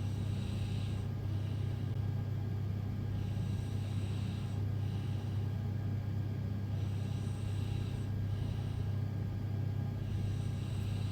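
A sleeping woman breathing noisily, one breath roughly every three and a half seconds, over a loud steady low hum.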